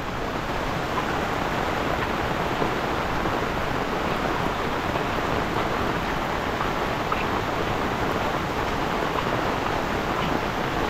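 Heavy rain falling steadily, an even hiss of rain on a wet paved road and the surrounding foliage.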